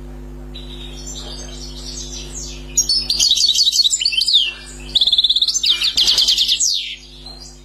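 European goldfinch singing: soft twitters at first, then about three seconds in two loud phrases of fast, repeated high twittering notes with a short break between them. A steady low hum sits underneath.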